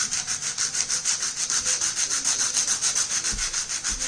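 A bicycle disc brake pad rubbed back and forth on sandpaper in quick, even strokes. The glazed, oil-contaminated pad surface is being roughened to give it back its friction.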